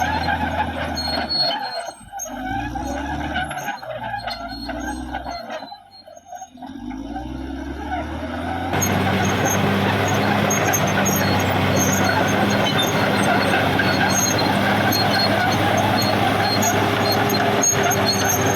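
Caterpillar D6R XL bulldozer's diesel engine working. In the first half its note sags and climbs again several times as it takes and sheds load. About nine seconds in the sound changes abruptly to a steady, louder run.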